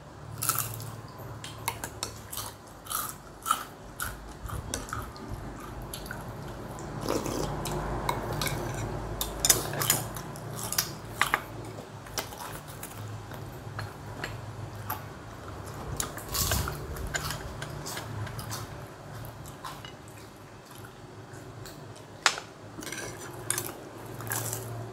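Eating sounds: chewing and biting into fried fish balls and crisp fried wontons, with frequent short clicks of bamboo skewers against a ceramic dipping bowl and plate, over a low steady hum.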